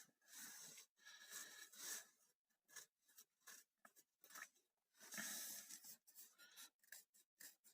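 Near silence, broken by faint, scattered rustling and handling noises.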